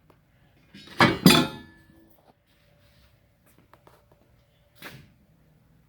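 Metal clinking and clattering as old front-suspension parts are handled: a loud clatter about a second in, a few faint ticks, and a smaller clink near the end.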